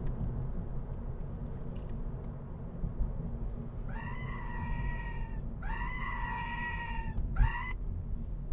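openpilot driver-assist alert from the comma device: three loud warbling electronic tones, two lasting over a second each and a short third near the end. It warns that the system cannot steer hard enough through the curve because the Honda's steering motor lacks torque. The car's road and engine rumble runs underneath.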